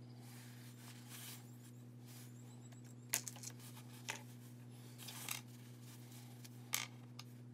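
A few faint rustles and sharp clicks from craft pieces being handled off to the side, over a steady low electrical hum.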